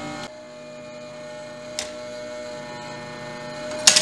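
Steady electrical hum from workbench equipment, with a small click a little under two seconds in and a short, loud hissy burst just before the end.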